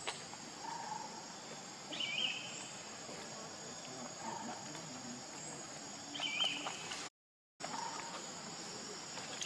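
Steady high-pitched insect chorus, with two short high chirps, about two seconds in and again about six seconds in. The sound drops out completely for about half a second near the end.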